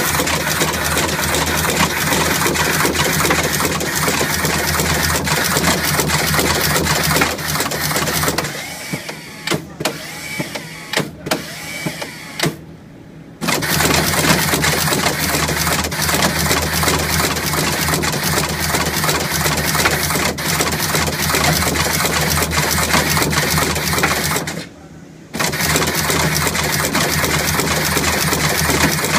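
Automated circuit-board assembly machine running: a fast, steady mechanical chatter of clicks over a low hum. Its rhythm thins to scattered clicks for a few seconds about a third of the way in and stops briefly near the end.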